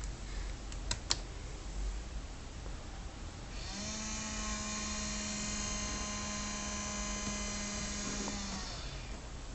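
Sony VAIO Z (VPCZ1) laptop giving a steady electronic buzz with many overtones for about five seconds, starting about three and a half seconds in, after two sharp clicks near the start. It is the noise-like sound heard on waking from sleep under Ubuntu, which the owner takes for a bug.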